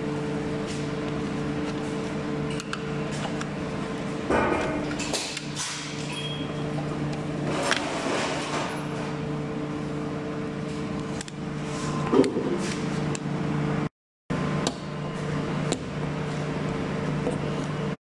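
Plastic push-pin retainer clips on an Opel Astra H's front panel cover being prised out with a small pry tool: scattered clicks and scrapes, the sharpest about four and about twelve seconds in, over a steady low hum.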